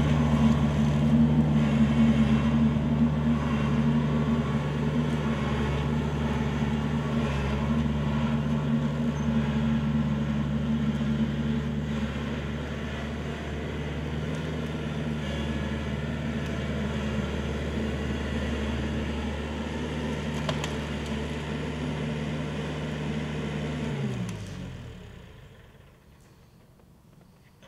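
Kubota L4400 tractor's four-cylinder diesel engine running steadily, then shut off about 24 seconds in, its pitch sliding down as it winds to a stop.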